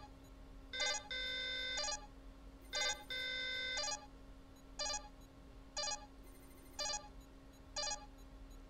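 Sci-fi starship computer auto-destruct countdown: a short electronic beep about once a second, with two longer held alert tones about one and three seconds in, over a steady low hum.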